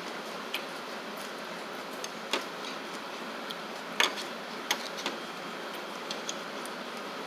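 Eating utensils clicking against dishes about a dozen times at irregular intervals, the loudest click about four seconds in, over a steady background hiss.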